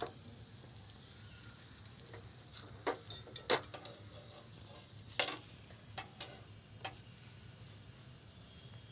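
A metal spatula clicking and scraping against a hot non-stick tawa, about six sharp taps in the middle stretch, as a rolled paratha is laid on and pushed flat. Underneath, a faint sizzle of the dough on the hot pan.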